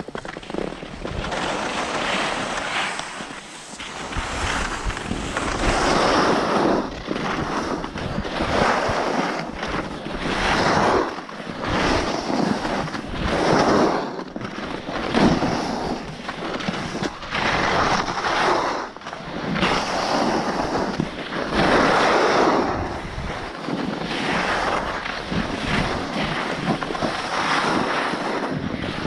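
Edges carving across snow in repeated turns down a ski slope: each turn is a scraping hiss that swells and fades about every two seconds, with wind rumbling on the microphone.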